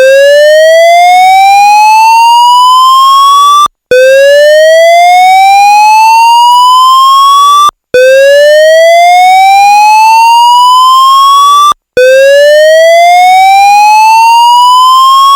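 AS2220 fire alarm evacuation tone: a loud whoop that sweeps upward in pitch over nearly four seconds, then repeats four times with brief gaps between. It is the signal to evacuate the building.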